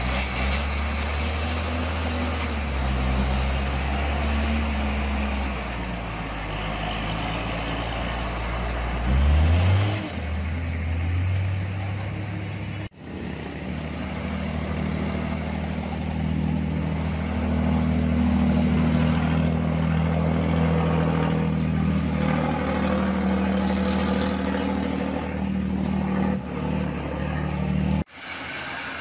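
Heavy Hino cargo truck's diesel engine running loud and low, with a sharp rise in revs about nine to ten seconds in. After a cut, a steadier engine drone of passing traffic on the climb.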